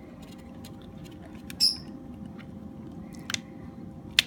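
Small sharp clicks of a precision screwdriver and tiny pentalobe screws being worked into the bottom of an iPhone 5, with one brief high squeak about one and a half seconds in and two clicks near the end.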